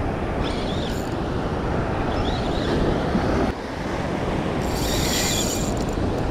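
Surf washing up the beach, with wind buffeting the microphone. A short high rasp comes about half a second in, and a longer one about five seconds in.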